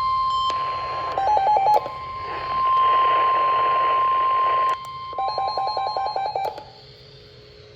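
NOAA Weather Radio 1050 Hz warning alert tone, a steady high beep, overlaid with stretches of hissing electronic noise and rapid pulsed beeping. It cuts off about six and a half seconds in.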